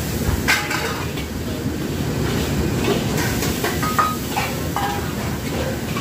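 Steady rush of a gas wok burner and kitchen extractor, with a metal ladle clanking and scraping against the wok several times during stir-frying.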